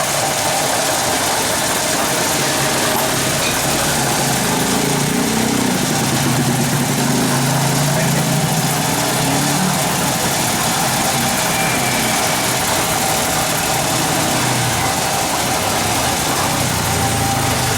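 Mitsubishi 4D34 four-cylinder turbo diesel engine running steadily at idle.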